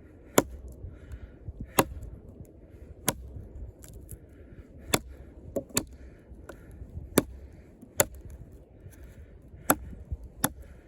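A 6 mm thick Sleipner steel combat knife blade chopping into a hard log, about ten sharp chops spaced a second or so apart, working the piece loose.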